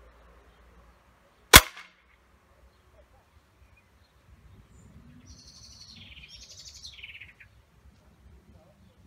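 A single sharp crack of a Steyr Challenge E pre-charged pneumatic air rifle firing a pellet, about a second and a half in. A few seconds later a songbird sings one warbling phrase.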